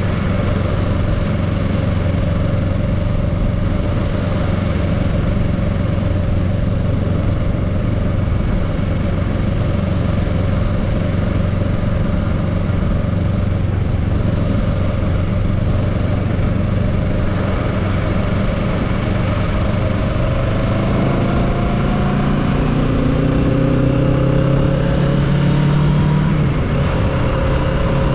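A 2022 Kawasaki Z650's parallel-twin engine, heard from the rider's seat, running at a steady cruise. About two-thirds of the way through it accelerates, its pitch rising for several seconds, then dips briefly near the end.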